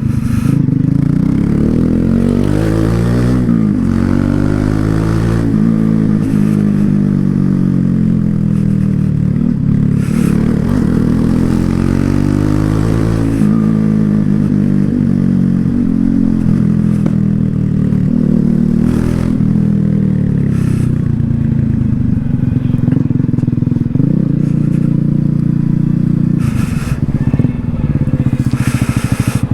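Loncin LX250-12C motorcycle exhaust while riding, the engine note repeatedly climbing and dropping as the bike accelerates, shifts gear and slows.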